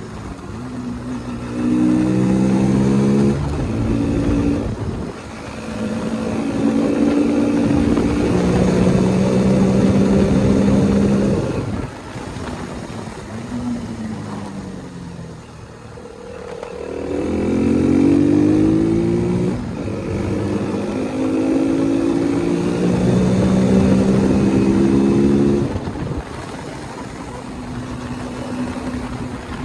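KTM single-cylinder motorcycle engine accelerating hard up through the gears twice. Its pitch climbs and drops back at each upshift, then falls away as it eases off.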